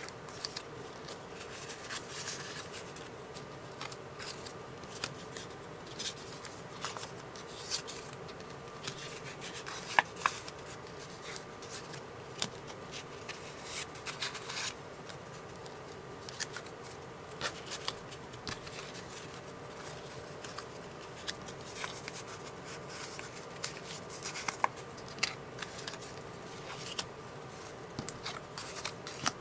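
Paper circles of brown kraft paper being handled: soft rustling, sliding and light taps as the discs are picked up, stacked and set down on a cutting mat, over a faint steady hum.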